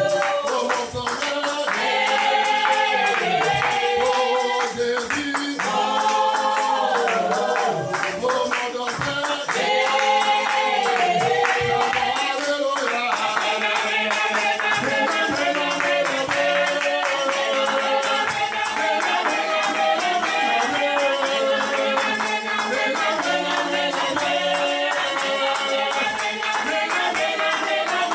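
Worship song: voices singing over music, with hand percussion such as a rattle or tambourine keeping a steady beat.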